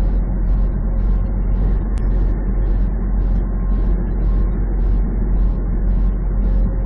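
Steady drone of a semi truck's engine and tyre noise at highway speed, heard inside the cab, with a faint high hiss pulsing about twice a second.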